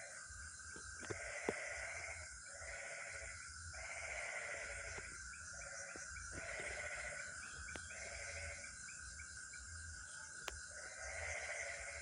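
Frog calling over and over: bleating calls about a second long, one roughly every second and a half, over a steady high-pitched hum.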